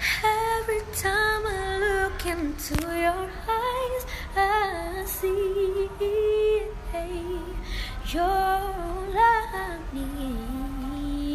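A female singer singing a slow melody, holding long notes with vibrato, with little else heard beneath the voice.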